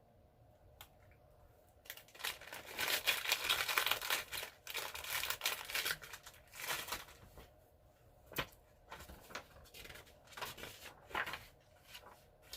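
Apple caramel cookie packaging crinkling and rustling as it is handled, dense for a few seconds, then a scattering of lighter crinkles and clicks.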